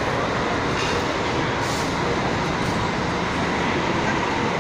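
Steady, even rumbling noise of a large, busy station concourse.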